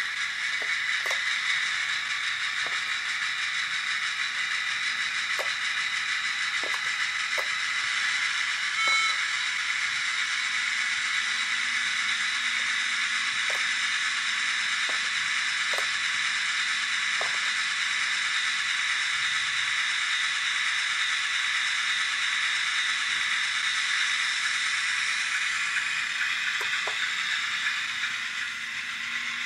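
Sound-fitted Hornby class 08 diesel shunter model playing its diesel engine sound steadily through its small onboard speaker as it runs slowly along the track, with scattered faint clicks and a brief higher tone about nine seconds in. The sound gets quieter near the end.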